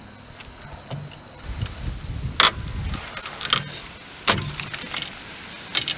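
Pliers prying and scraping at a rusted steel sway bar link spacer, with a few sharp metallic clicks, the loudest about two and a half and four and a half seconds in.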